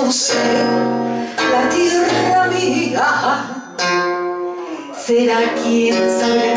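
A woman singing into a microphone with acoustic guitar accompaniment, holding long notes between phrases.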